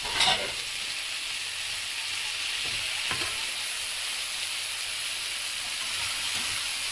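Potato slices, onion, sausage and cherry tomatoes sizzling in oil in a nonstick frying pan while being stirred with a spatula. A brief clatter of the utensil right at the start and a lighter knock about three seconds in.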